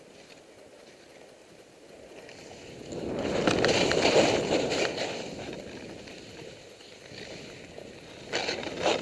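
Skis scraping over packed snow during turns, swelling loud about three seconds in and easing off, with another short, sharp scrape near the end.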